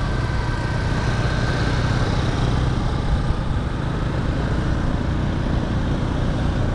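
Motor scooters running steadily along at riding speed, a continuous noisy rumble without breaks.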